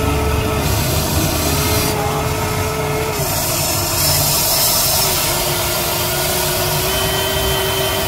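Electric motors of a Huina radio-controlled toy excavator whining in spurts as the boom and bucket move through wet mud. The whine starts and stops three times, holding a nearly steady pitch each time.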